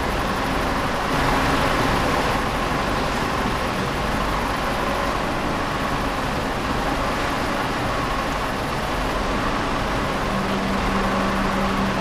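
Steady mechanical rumble and hiss from a tilting rotary furnace for aluminum dross and its plant running. A low steady hum joins about ten seconds in.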